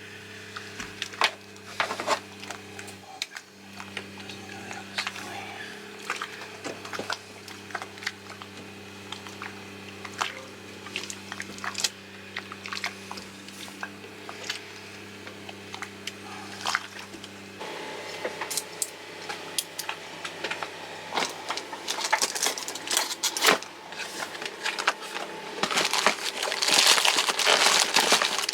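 Clinks, taps and knocks of hand tools and metal parts being worked on a marine diesel's fuel system. The handling grows busier and louder near the end, over a steady low hum.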